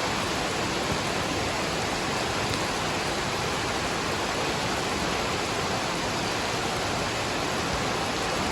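Waterfall and rain: a steady, unbroken rush of falling water.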